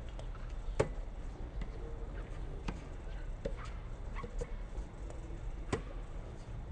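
Tennis balls struck with rackets and bouncing on a hard court during a practice rally: several sharp pocks at uneven spacing, the loudest about a second in and near the end, over a steady low rumble.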